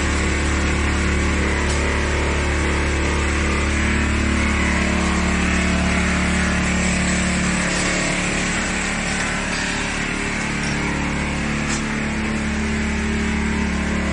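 A vertical form-fill-seal flour packing machine running, a steady mechanical hum with many steady tones. The low part of the hum drops away about eight seconds in.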